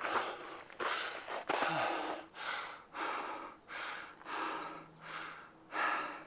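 A person breathing heavily and fast, with loud, rapid in and out breaths about every three-quarters of a second: out of breath from the exertion of a climb.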